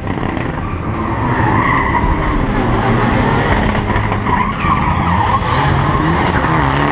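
Mitsubishi Lancer Evolution X rally car's turbocharged four-cylinder engine revving hard through a tarmac hairpin, with tyres squealing. The engine pitch rises near the end.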